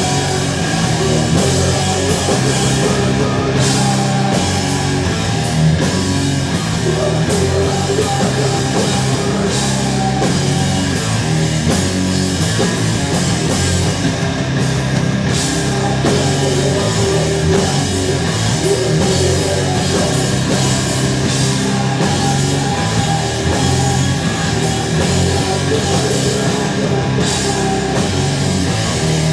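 Heavy rock band playing live and loud: electric guitars, bass guitar and drum kit, steady throughout.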